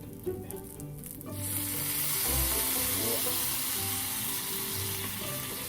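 Food frying, with a loud steady sizzle that starts abruptly about a second in.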